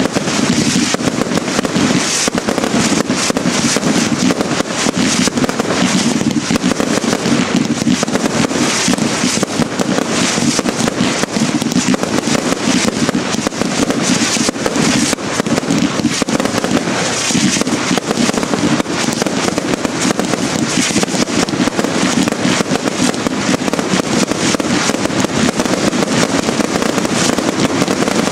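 Consumer New Year's (Silvester) fireworks firing without a break: a dense, unbroken run of launches and shell bursts, pop after pop and bang after bang, loud the whole time.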